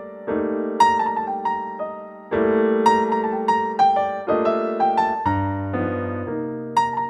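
Background piano music: a gentle melody of short notes over held chords that change every second or two.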